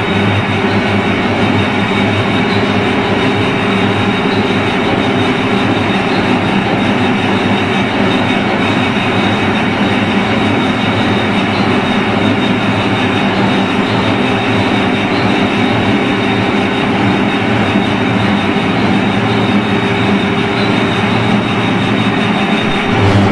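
Subway tunnel hermetic gate, a massive steel blast-and-flood door, being driven shut by its electromechanical drive: steady mechanical running noise with a thin, high whine over it.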